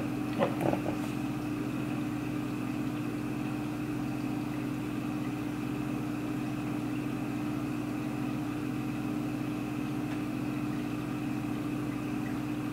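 A steady, even mechanical hum at a constant pitch, with a few faint taps about half a second in.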